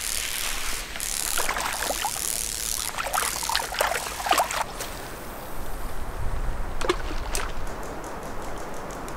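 Shallow lake water splashing and trickling around hands at the shoreline as a brook trout is released, then a couple of sharp clicks near the end.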